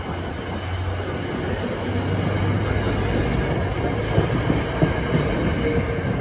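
Passenger coaches of an NJ Transit commuter train rolling past on the rails: a steady rumble of wheels and running gear that grows a little louder as the trailing cab car comes by near the end.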